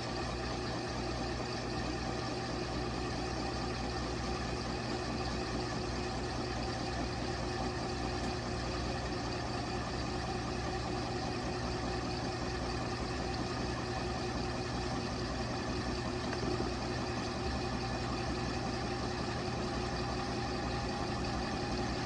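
LG Mega Capacity top-load washing machine on its bulky/bedding cycle, its tub turning a bean bag chair with the lid open: a steady motor hum and machine drone that holds level throughout.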